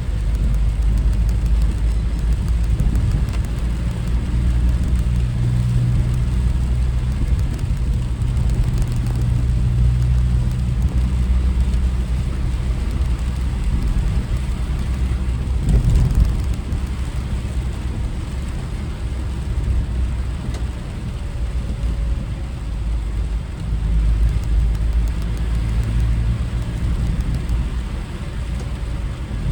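Car driving on the road: steady low engine and road rumble with a drone that shifts in pitch now and then, and a single thump about halfway through.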